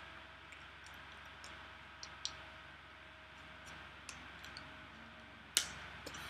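Faint scattered clicks and taps from hands meeting and brushing during signing, over a steady low room hum, with one sharper slap-like click about five and a half seconds in.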